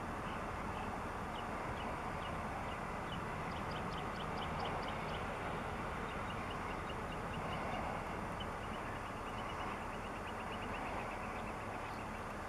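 Airbus A350-900's Rolls-Royce Trent XWB jet engines at taxi idle, a steady even noise as the airliner rolls past. A bird repeats short high chirps in the background, the notes coming faster, almost as a trill, in the second half.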